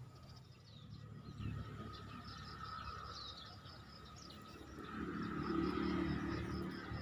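Birds chirping in short repeated calls over a steady high buzz, with a louder low noise swelling about five seconds in.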